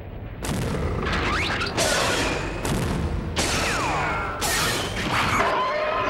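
A run of sudden loud explosions, about one every second or so, as the automatic mines blow up around the kaiju, with sliding tones sounding between the blasts.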